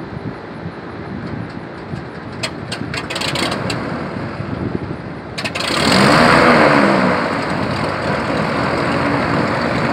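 A twin-engine piston airplane runs on the ramp, with a few sharp clicks early on. About six seconds in its engine noise swells sharply as an engine catches and flares, then settles to a steady idle.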